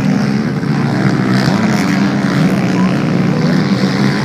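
Motocross bikes racing: their engines run loudly and steadily, with small rises and falls in pitch as riders work the throttle.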